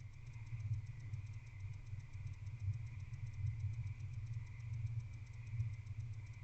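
Steady low electrical hum with a faint, fast, even ticking above it, from an owl-box camera microphone. No owl call stands out.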